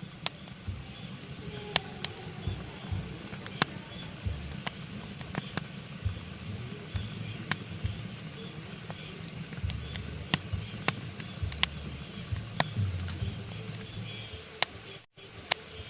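Pine logs burning in a fireplace, crackling with irregular sharp pops over a steady hiss and low rumble of the flames. The sound cuts out for an instant near the end.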